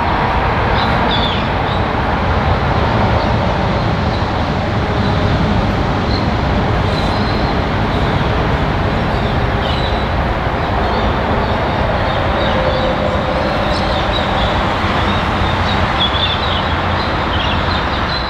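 Diesel locomotive running with a steady low rumble, with short high chirps now and then.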